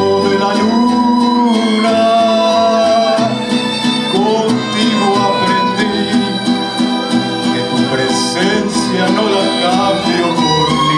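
Live mariachi band playing a song, with violins, trumpets and guitars, and a man singing over it.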